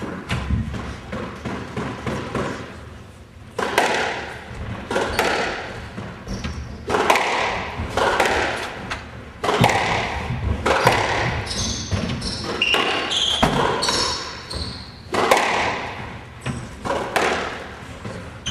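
Squash rally on a court: the hard rubber ball struck by racquets and smacking off the walls and floor in irregular sharp hits, each ringing in the court's echo. A few short high squeaks come in the second half.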